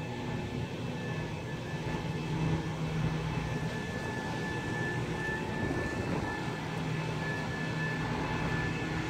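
Volvo EW205D wheeled excavator, rigged as a material handler with a grapple, working as it slews its boom and swings a crate: the diesel engine runs under load with a steady high whine over it that grows stronger in the middle.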